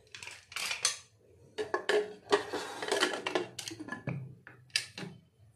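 Pressure cooker lid being fitted and closed on the pot: a run of metal clanks, clicks and scraping as the lid goes on and is locked in place.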